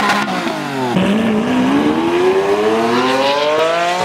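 A car engine revving: the revs drop over about the first second, then climb steadily in one long hard pull for about three seconds.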